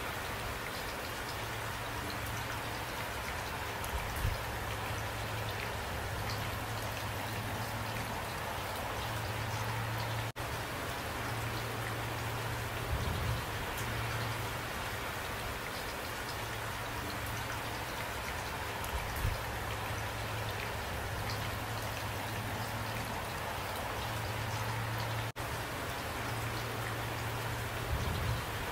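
Steady rain falling, an even hiss of drops with a low hum underneath that comes and goes. The sound drops out for an instant twice.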